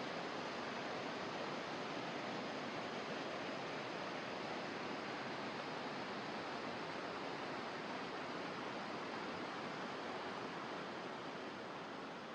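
Steady rush of fast-flowing water from a rain-swollen canyon creek and waterfall, easing slightly near the end.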